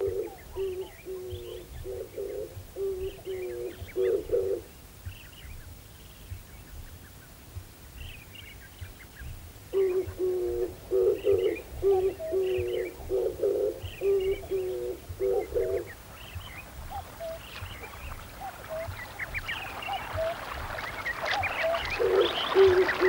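Birdsong: scattered high chirps over a low, repeated cooing call that comes in three runs of a few seconds each. Over the last few seconds a steady rush of running water builds up.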